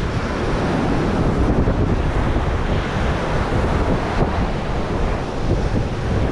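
Heavy wind buffeting the microphone over the steady rush of breaking surf.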